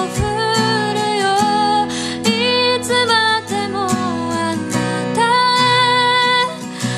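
Background music: a song with a singing voice over guitar accompaniment.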